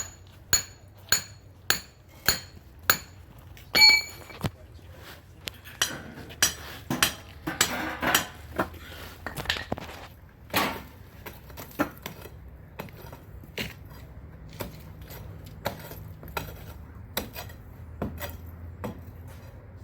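A hammer striking a steel star point chisel, about one and a half ringing blows a second for the first four seconds, then irregular duller knocks and crunching as the chisel breaks into the fired clay furnace wall.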